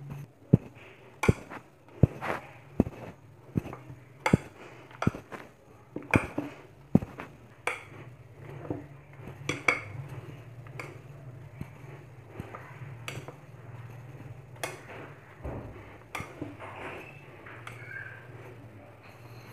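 Stiff dough being kneaded by hand in a ceramic bowl, giving a run of sharp knocks and clinks of the bowl, about one a second, that grow sparser and softer after about eight seconds.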